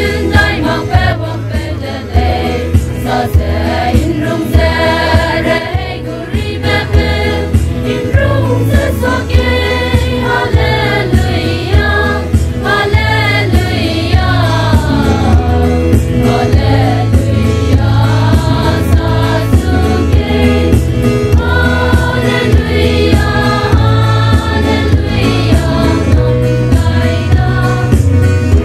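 A women's church choir singing a gospel song in unison and harmony, with a steady pulsing bass beat from the accompaniment underneath.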